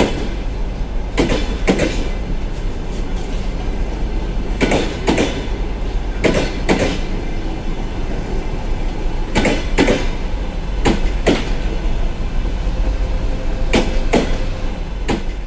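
Passenger train coaches rolling past slowly over a steady rumble, their wheels clacking over a rail joint in pairs as each bogie's two axles cross it, about six pairs in all; the last coach passes near the end.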